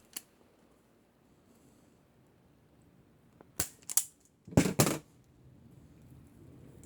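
Irwin Vise-Grip self-adjusting wire stripper working on electrical cable: its spring-loaded jaws clack shut and snap open in sharp clicks. There is a faint click at the start, two sharp clicks about three and a half seconds in, and a louder double snap about a second later.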